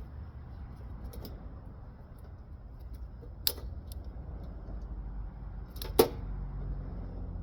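Scrap-metal handling noises while an air-conditioner unit is pulled apart: small rattles and two sharp metallic clacks, the louder one near the end, over a steady low rumble.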